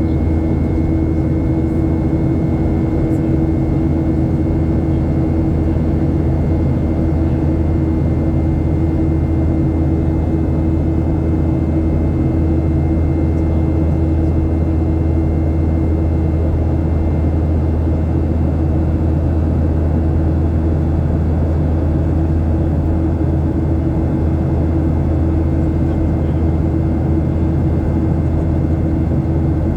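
Steady cabin drone of a Boeing 737-800 in flight, heard from a window seat: a low rumble of engine noise and airflow with steady humming tones from the CFM56-7B turbofans.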